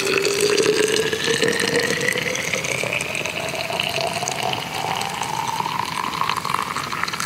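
Just-boiled water poured into a container to brew rosehip tea, the filling note rising steadily in pitch as the container fills.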